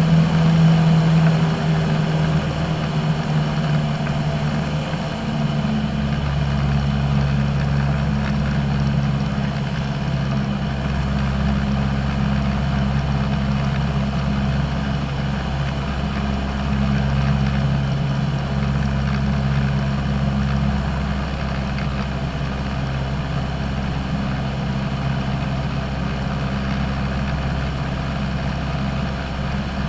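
Single-engine light aircraft's piston engine and propeller droning steadily in cruise, heard inside the cabin; the pitch drops slightly in the first few seconds, then holds.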